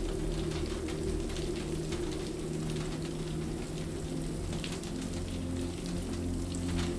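Steady rain falling on a hard surface, with many separate drops striking, over a low, soft layer of sustained tones that shift in pitch now and then.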